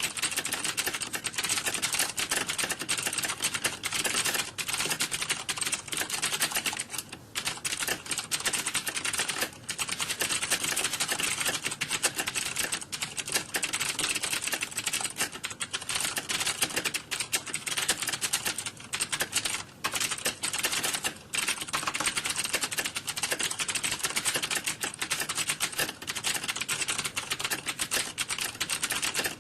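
Computer keyboard typing at a fast, steady pace: a dense stream of key clicks, with a few brief pauses.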